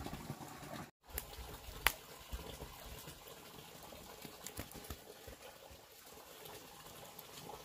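Running water, with a few sharp clicks and knocks over it. The sound drops out completely for a moment about a second in.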